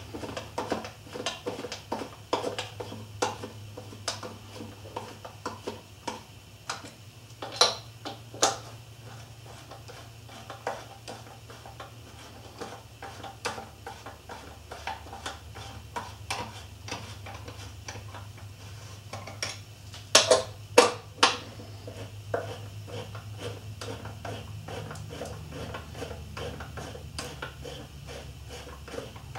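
Small metal parts clinking and rattling as they are picked through and handled by hand, with a few sharper clanks about 8 seconds in and a louder cluster about 20 seconds in. A steady low hum runs underneath.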